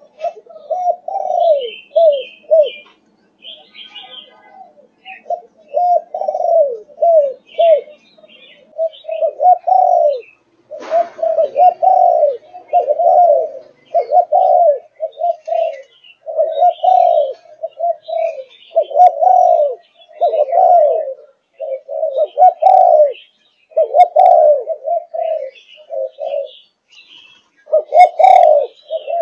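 A 5.5-month-old Malaysian-line spotted dove cooing over and over in short phrases of rising-and-falling coos, with brief gaps between them. Faint chirps of small birds sound behind it, and a single sharp click comes about eleven seconds in.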